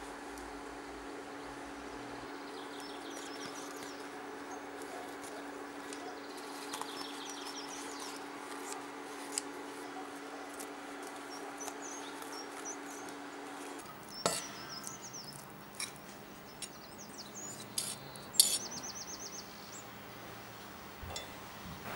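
A steady low hum that stops about two-thirds of the way through, with small birds chirping faintly in the background. In the last part come a few sharp clinks of a metal spoon against a cast-iron pan.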